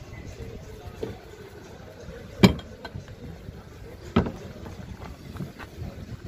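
Cargo-box door of a Hyundai Porter refrigerated van being shut: a loud metallic bang about two and a half seconds in, then a second, quieter clank as the door's lock rod is latched.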